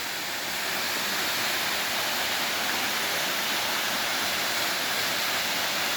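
Waterfall pouring: a steady, even rush of falling water, a little louder from about half a second in.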